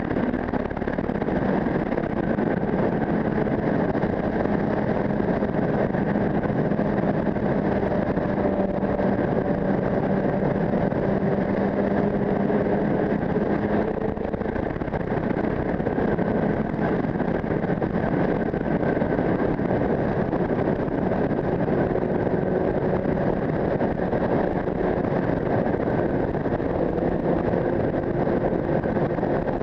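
Steady wind noise over a helmet-mounted camera while riding a sport motorcycle, with the bike's engine running underneath at cruising speed; the engine note changes pitch about halfway through.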